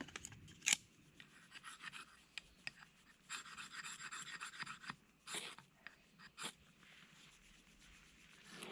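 Faint handling noise: scattered clicks and taps with scraping rustles, and two sharper knocks a little past the middle.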